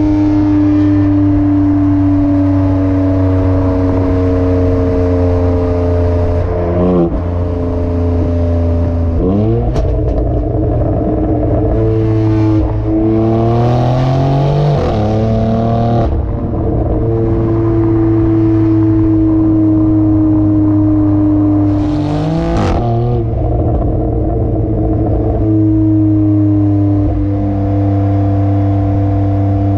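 BMW X3 M's S58 twin-turbo inline-six through a resonator-delete exhaust, heard at the tailpipes while driving. It drones steadily at light throttle with the pitch slowly sinking, and several times the revs climb under acceleration and step down at gear changes.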